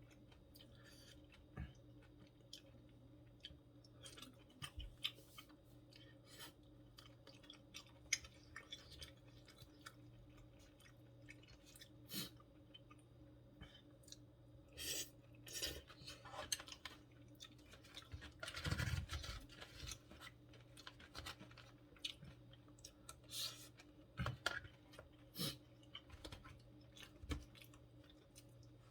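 Close-up chewing and eating sounds, with scattered small clicks and taps. There is a louder, noisier stretch about two-thirds of the way through, over a faint steady hum.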